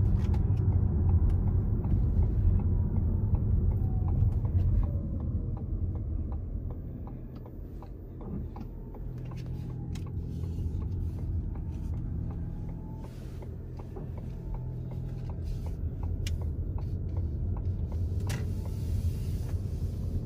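Low road rumble inside a moving car's cabin. It quietens in the middle as the car slows to a stop at a stop sign, then builds again as the car drives on.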